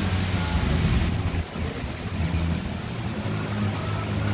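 Heavy rain pouring onto canal water and a wooden deck, a dense steady hiss, a little lighter after about a second. Under it runs a low steady engine drone.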